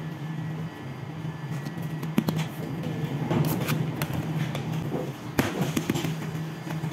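Sourdough being shaped by hand on a floured stainless steel table: soft pats and handling noise, a plastic bench scraper scraping across the steel around the middle, and a couple of sharp knocks, over a steady low machine hum.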